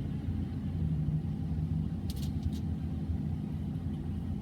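Steady low rumble of a car, heard from inside the cabin, with a short crackle about two seconds in.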